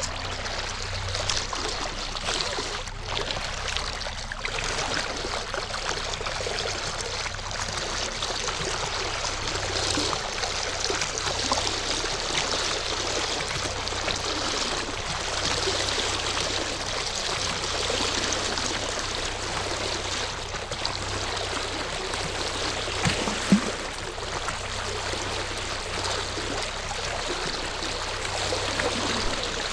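Water rushing and splashing steadily over a constant low hum, with a single knock near the end.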